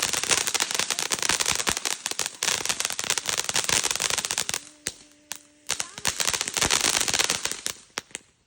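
Fireworks crackling: a rapid, dense run of sharp pops for about four seconds, a brief lull, then a second flurry of pops that stops shortly before the end.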